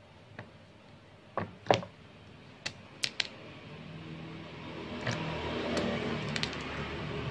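A cleaver chopping chunks off a tough, mature pumpkin: a handful of sharp knocks, with pieces dropping into a plastic basin. About four seconds in, a low rumble like a passing motor vehicle starts and grows louder.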